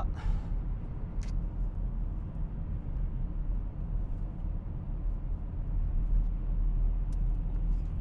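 Road and engine noise inside a moving car's cabin: a steady low rumble.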